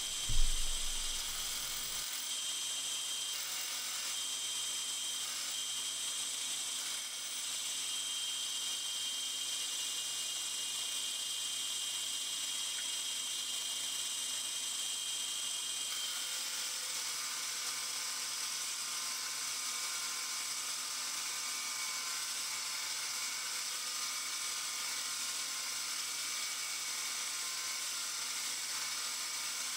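A short thump just after the start, then a Bridgeport-type milling machine running steadily, its roughing end mill milling the side of a steel angle iron plate. The whir changes slightly about halfway through.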